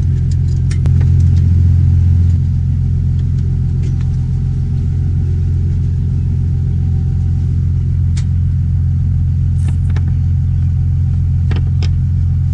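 Tow vehicle's engine idling with a steady low rumble that swells briefly about a second in. A few light metal clicks as the boat trailer's transom tie-down strap hooks are unhooked.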